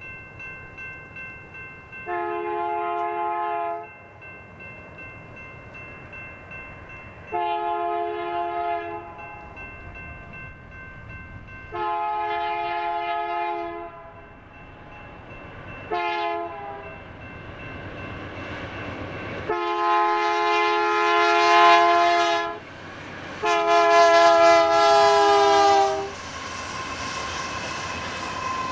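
BNSF freight locomotive's multi-chime air horn blown six times as the train approaches: three long blasts, a short one, then two long ones, the last two the loudest. A grade-crossing bell rings steadily underneath, and the train's rumble grows louder toward the end as it arrives.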